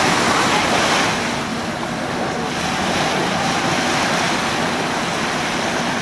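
Small waves of the Andaman Sea washing onto a white-sand beach: a steady rush of surf that eases a little about a second and a half in, then builds again.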